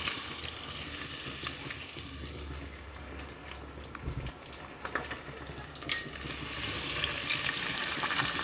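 Batter-coated fish fillets frying in hot oil: a steady sizzle with fine crackling, getting louder over the last couple of seconds. A low bump about four seconds in.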